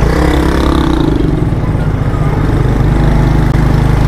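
Motor vehicle engine sounds on a street: a steady low engine hum throughout, with an engine passing close by whose pitch falls over the first second and a half.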